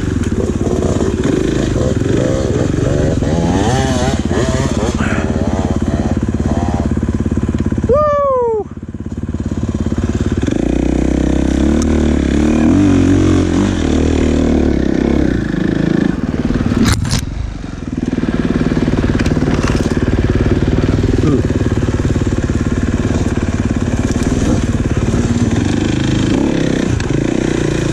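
Off-road dirt bike engine running under changing throttle, the pitch rising and falling as it is ridden. About eight seconds in there is a quick falling sweep in pitch, and a sharp knock about seventeen seconds in.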